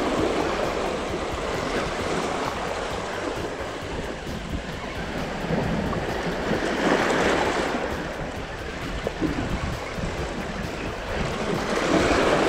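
Ocean surf washing over a rocky shore, a steady rush of water that swells about halfway through and again near the end.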